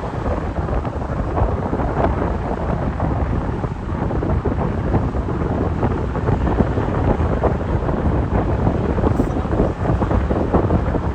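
Heavy wind buffeting the microphone with a steady low rumble of road and engine noise, as from filming out of a moving vehicle.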